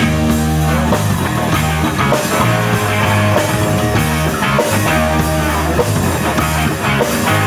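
Live rock band playing an instrumental passage between vocal lines: distorted electric guitar and drum kit with a steady beat under sustained low notes.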